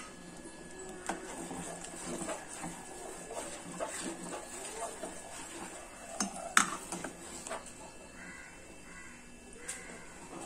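A metal spoon stirring milky vermicelli payasam in a steel pot, scraping and knocking against the pot now and then, with the sharpest knock about two-thirds of the way through.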